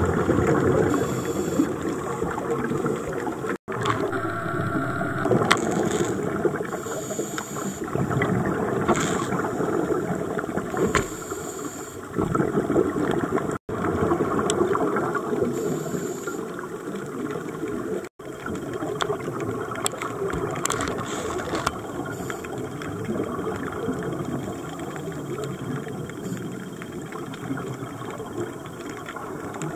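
Underwater sound of scuba divers breathing through regulators: exhaled bubbles gurgling and rushing in uneven surges over a steady low rumble. The sound drops out abruptly three times for an instant.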